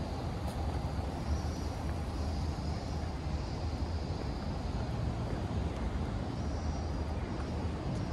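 Steady city street ambience: a low, even rumble of passing road traffic.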